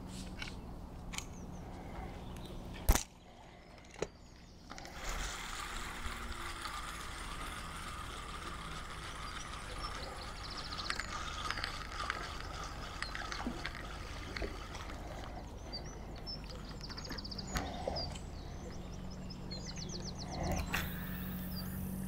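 Fishing reel being wound, a light mechanical ticking in runs, with one sharp click about three seconds in.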